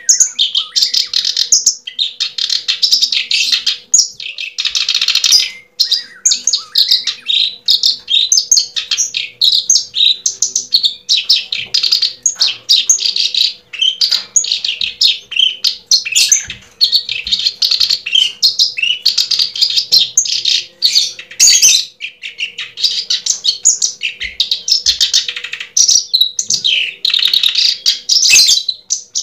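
Birds chirping and twittering in quick, nearly unbroken runs of high calls.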